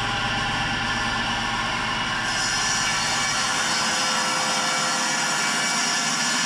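Table saw running and cutting through a slab of elm. The blade enters the wood about two seconds in, and the sound turns harsher and more hissing, holding steady through the cut.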